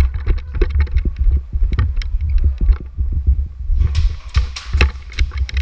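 Handling and movement noise on a body-worn camera's microphone: a heavy low rumble with irregular knocks and clicks, and a short burst of hiss about four seconds in.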